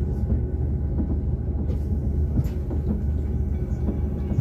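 High-speed passenger train running at speed, heard from inside the carriage: a steady low rumble with a few faint clicks.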